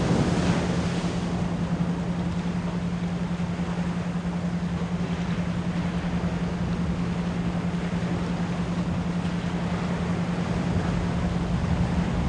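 A steady 174 Hz pure tone, pulsed as an isochronic beat, layered over the continuous wash of ocean waves; a wave surges in about a second in.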